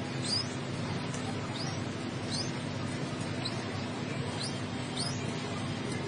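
Pigeon chick peeping: short, high, falling squeaks, about one a second, over a steady low hum.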